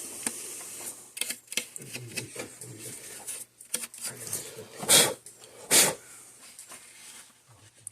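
Small clicks and rustles of a weigh scale indicator's plastic case and circuit board being handled, with two short, louder hisses about five and six seconds in.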